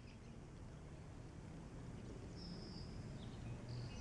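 Quiet outdoor ambience: a faint low rumble, with a few short, high bird calls about two seconds in and again near the end.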